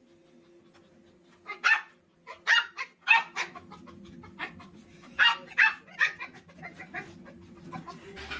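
Dog barking: a run of short barks, several of them in quick pairs, starting about a second and a half in.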